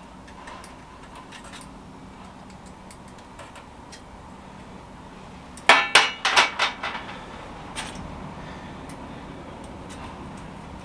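A quick run of loud metallic clanks about six seconds in, with brief ringing: a stainless steel flue band being set down on a stainless steel worktop. Small clicks of the metal parts being handled come before and after.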